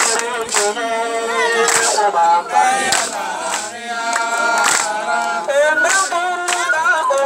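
A group of men and women singing together in a chant, several voices overlapping, over sharp percussive strikes at a regular beat.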